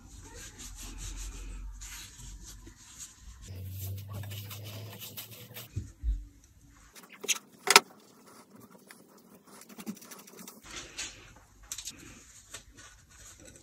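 Hands rubbing and rolling pieces of soft bread dough and pressing them into breadcrumbs, a quiet rustling, with a couple of sharp clicks about seven and a half seconds in.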